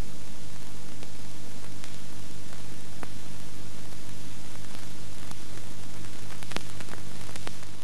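Steady hiss with a low mains-like hum and scattered faint crackles: the noise floor of an old film soundtrack. No distinct aircraft sound stands out. The hiss fades away near the end.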